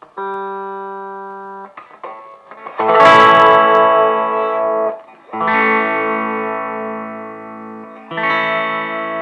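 Electric guitar played through a high-gain amp with distortion: a short held chord that is cut off, then three strummed chords, each left to ring and slowly fade.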